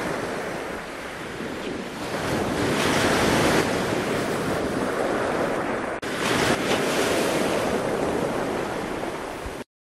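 Wind and ocean surf rushing steadily, with wind buffeting the microphone. It breaks off briefly about six seconds in and cuts off sharply just before the end.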